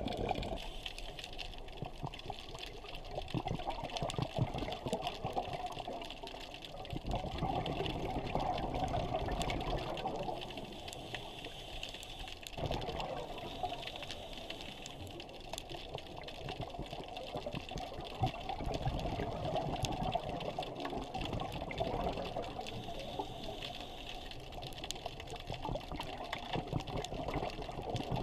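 Muffled underwater sound picked up by a submerged camera: a steady rushing of water that swells and eases every few seconds.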